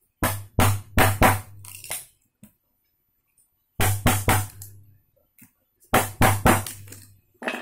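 Hammer blows on a Tekiro wood chisel, driving the blade into a wooden block: three runs of sharp knocks, four or five blows each, with a short pause between runs and a dull thud under each blow.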